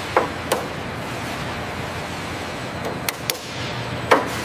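Steady workshop hiss broken by about five sharp clicks and clanks: two near the start, two close together about three seconds in, and the loudest near the end. Two of them trail a brief falling tone.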